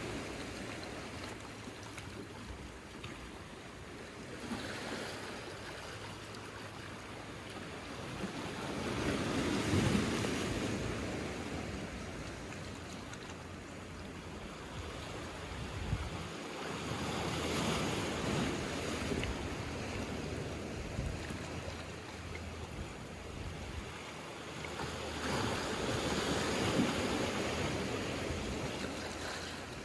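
Small sea waves washing in over rocks and a pebble beach, the surf swelling and easing about every eight seconds.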